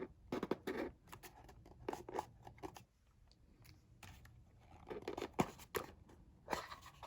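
A knife's cardboard box and paper packaging being handled and opened by hand: scattered short rustles, scrapes and clicks.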